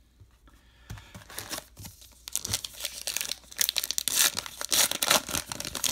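A baseball card pack's wrapper being torn open and crinkled by hand, after a softer rustle as the pack is drawn from the box. The tearing and crinkling start about three seconds in and are loudest near the end.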